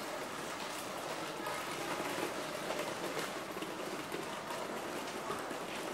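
Steady ambient noise of a shopping street: an even hiss with faint scattered clicks.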